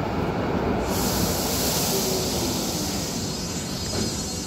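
Light-rail car rolling into an underground station and slowing to a stop: a steady low rumble from the wheels, with a loud hiss starting about a second in.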